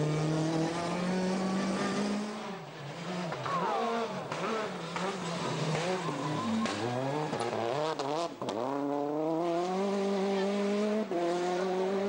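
Peugeot 208 T16 rally car's turbocharged four-cylinder engine at high revs on a gravel stage. It holds steady at first, then the pitch climbs and drops again and again with throttle lifts and gear changes, over a hiss of tyres on loose gravel.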